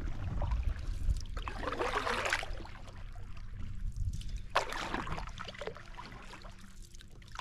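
Canoe paddle strokes: a splash and trickle of water as the paddle dips and pulls, about every three seconds, over a low steady rumble.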